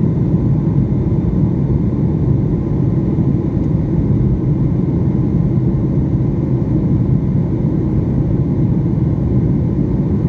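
Steady low rumble of engine and airflow noise inside an airliner cabin, even and unbroken.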